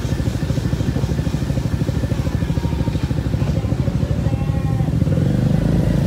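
Motorcycle engine running as it rides along, a fast, steady pulsing that grows a little louder near the end.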